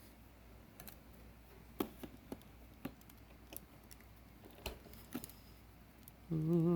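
Scattered light clicks and knocks of plastic parts of a cordless stick vacuum being handled and fitted together, with the motor off. Near the end a person hums briefly.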